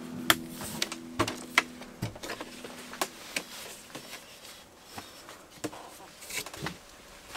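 Irregular light clicks and taps, a few each second, while the last notes of music fade out in the first two seconds.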